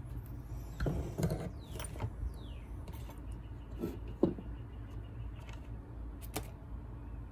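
Hand tools being handled and set down on a wooden workbench: a cluster of rattling handling noises about a second in, then a few sharp knocks, the loudest near four seconds in, over a steady low hum.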